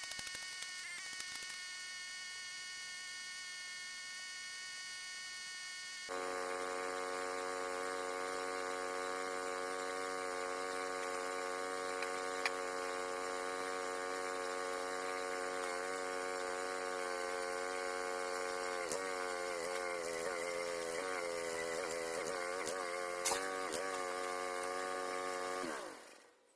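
Small engine of a towable backhoe running steadily, stepping up louder about six seconds in as it is worked. In the last several seconds its pitch wavers and dips under heavy hydraulic load, with a few sharp knocks, before the sound cuts away.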